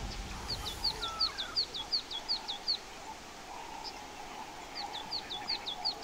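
A bird calling in quick runs of short, high notes, about five a second: one run of about two seconds, then another starting near the end, over faint forest ambience with a low steady hum.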